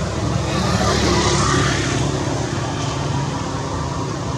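Steady motor-vehicle and traffic noise with a low engine hum, swelling briefly about a second in.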